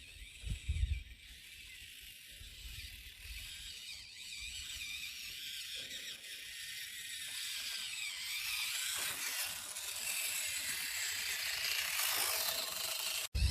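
Axial SCX24 micro RC crawler's small electric motor and geared drivetrain whirring with a high-pitched whine that wavers with the throttle, growing louder toward the end.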